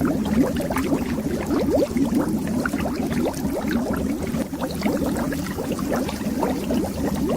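Bubbles streaming under water, a dense, continuous run of short rising blips over a low rumble.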